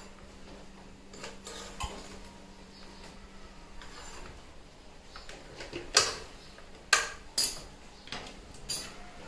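Knife cutting through crisp toasted sandwiches on a plastic chopping board: sharp clacks of the blade on the board and crunches of the toast, a few faint ones early and a louder run of them from about six seconds in.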